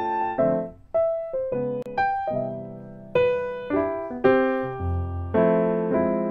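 Background piano music: chords and melody notes struck every half second or so, each one ringing and fading before the next.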